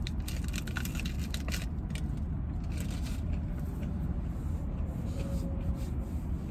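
Steady low rumble inside a parked car's cabin, with scattered small clicks and scrapes over it.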